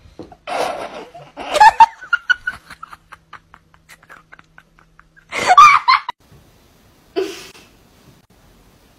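A person laughing in loud bursts, with a run of short quick giggles in between.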